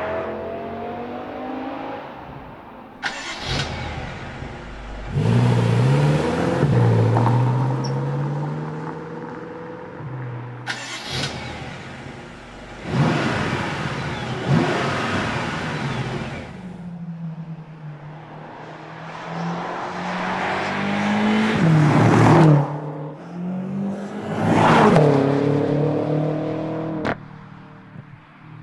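BMW M5 engine revving and accelerating several times, its pitch climbing and falling through each surge, dropping back to a steady lower note between the bursts.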